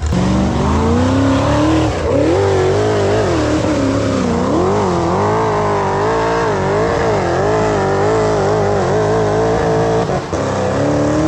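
High-horsepower off-road hill-climb vehicle's engine revving hard, its pitch climbing over the first two seconds and then surging up and down with the throttle. It dips briefly near the end and cuts off abruptly.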